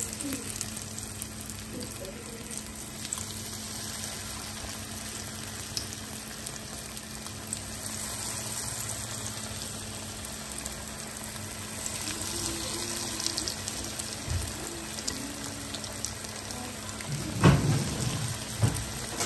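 Cornflake-breaded chicken pieces frying in a pan of hot oil, a steady sizzle. A few louder knocks near the end.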